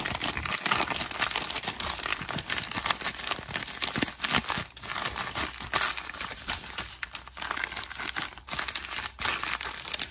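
Plastic zip-top bag crinkling continuously as it is squeezed and kneaded by hand, with a few brief pauses, working food colouring through the sugar inside.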